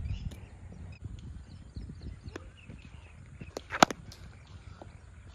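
A cricket bat striking the ball once, a sharp crack about three-quarters of the way through, with a lighter tap just before it. Birds chirp in the background.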